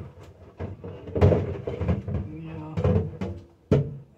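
A person's voice talking quietly, with a sharp knock about half a second in and another near the end.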